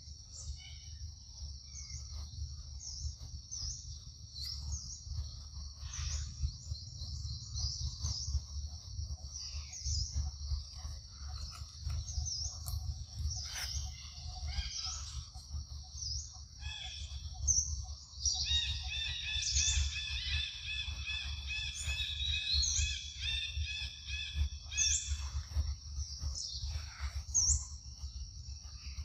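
Forest ambience: a steady high-pitched insect drone runs throughout, with short bird chirps about once a second. From about two-thirds of the way in, a longer call of several stacked tones repeats for several seconds. A constant low rumble lies underneath.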